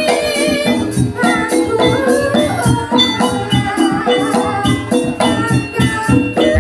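Jaranan gamelan music: dense, rapid percussion under a wavering melody line, playing without a break.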